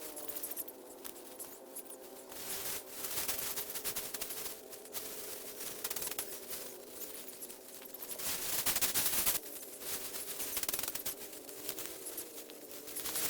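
Dry rice stalks rustling and crackling as the harvested paddy is handled and bundled into sheaves, in uneven stretches, with the loudest around the middle and near two thirds of the way in.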